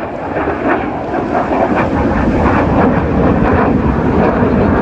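Loud, steady rumble of a jet aircraft's engines in flight.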